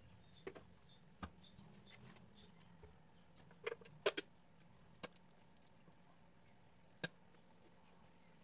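A handful of faint, sharp clicks and taps, the loudest three close together about four seconds in, over a low steady hum, as sauce is poured from a bottle into a pan of simmering chicken stew.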